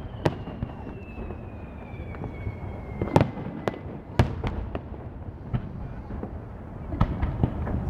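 Aerial fireworks bursting: sharp bangs at uneven intervals, a cluster of four in the middle and another near the end, over a low rumble, with one long whistle falling in pitch over the first three seconds.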